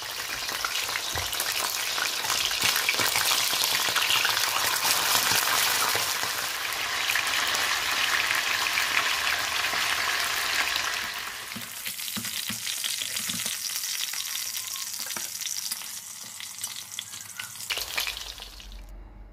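Fish steaks frying on high heat in hot oil in a stainless steel pot: a dense crackling sizzle that turns quieter about two-thirds of the way through and stops just before the end.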